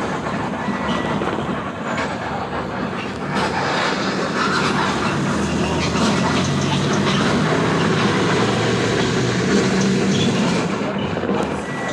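Road vehicle driving along a city street: a steady engine rumble with tyre and road noise, getting louder about four seconds in.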